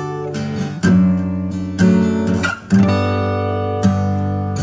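Background music: acoustic guitar strumming chords, a new chord struck about once a second.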